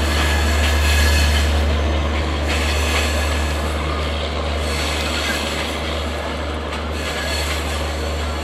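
Diesel-hauled passenger train rolling away over the rails: a steady low rumble with wheel-on-track noise, slowly getting quieter.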